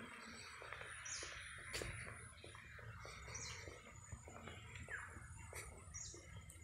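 Birds chirping faintly: short high chirps every two or three seconds and one falling chirp near the middle, over a low steady rumble with a few sharp clicks.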